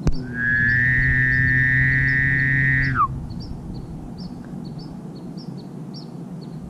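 Elk bugle: a high whistle held for about two and a half seconds over a low tone, sliding down at the end. The listeners take it for a person blowing an elk call rather than a wild elk.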